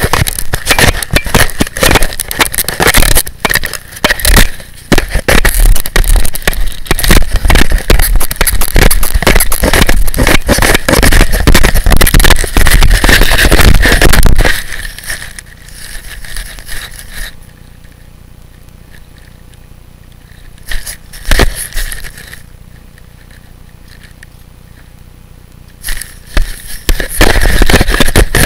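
A dog chewing and mouthing a video camera right against its microphone: loud, dense clicking and rattling of teeth on the camera body. About halfway through it goes much quieter for some ten seconds, with a couple of single clicks, then the loud chewing noise starts again near the end.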